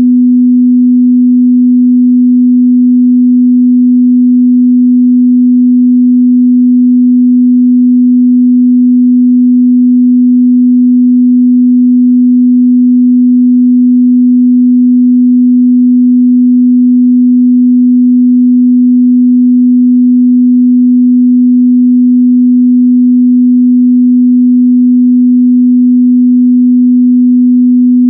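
A steady, loud 248 Hz sine-wave test tone, one pure mid-bass pitch held without change.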